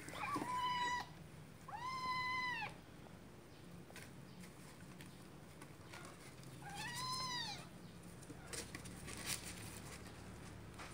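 Kittens meowing: three thin, high calls, each rising then falling in pitch, about a second apart near the start and once more around seven seconds in, with a few faint clicks between.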